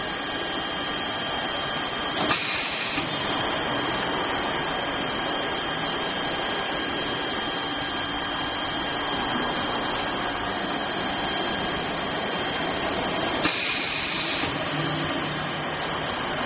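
CNC drilling and cutting machine running, a steady mechanical noise with a constant high whine, which shifts briefly about two seconds in and again near the end.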